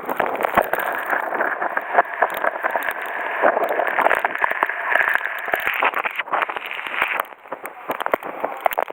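Typhoon wind and rain: a dense rushing hiss full of crackling taps, easing off about seven seconds in.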